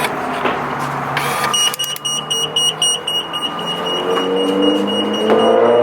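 Mitsubishi Lancer Evolution IX's warning buzzer beeping rapidly and steadily for several seconds, with the engine running underneath and its revs climbing in the second half.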